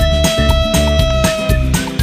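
Upbeat background music with a steady beat and a long held note that stops near the end.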